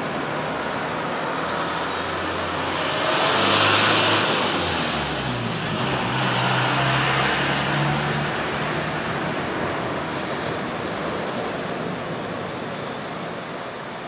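Surf breaking on a sandy beach: a steady rush that swells twice and eases off near the end, with a low hum underneath.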